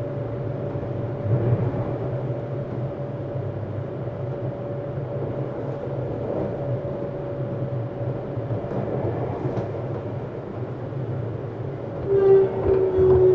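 Cabin running sound of a Tokyu 7700 series electric train: steady wheel-and-rail rumble with a faint hum. About twelve seconds in it gets louder as a stronger motor tone sets in, sagging slightly in pitch.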